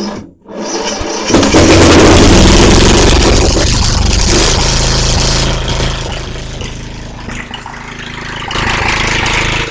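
Murray lawn mower's small gasoline engine, choke on, cranked by its electric starter through a jumped solenoid: a sharp click, then cranking that catches about a second in and runs loudly and steadily, easing off after about five seconds and picking up again near the end.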